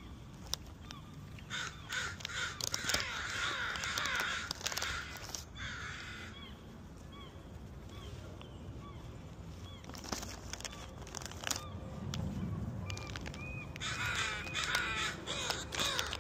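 Several American crows cawing in overlapping bursts, about two seconds in and again near the end, with scattered single calls between.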